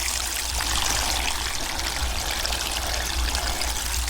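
Water running steadily from a garden hose, pouring onto the potted plants, with a low steady rumble underneath.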